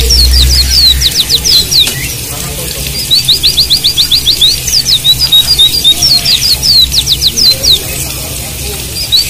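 Javan white-eye (pleci) song in repeated phrases: a fast run of about ten short high notes, then a few downward-sliding whistles, starting again about every three seconds. A steady hiss of running water lies beneath.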